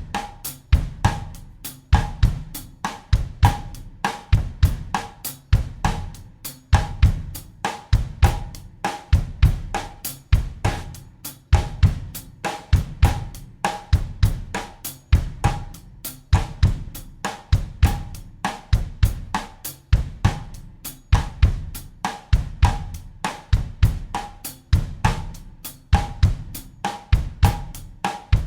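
Acoustic drum kit playing a steady bossa nova groove in 4/4 at 100 BPM, a repeating loop of kick drum, snare and cymbal strokes.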